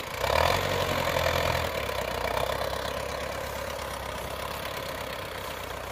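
Small farm tractor's diesel engine working under load as it tows a trailer carrying a combine harvester, louder for the first second and a half, then running steadily.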